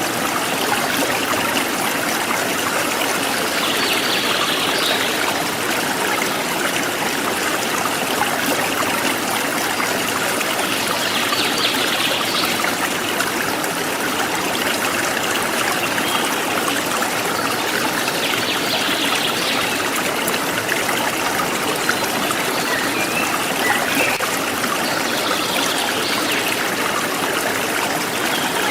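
Forest stream flowing steadily, a constant rush of running water, with short bursts of bird chirping about every seven seconds.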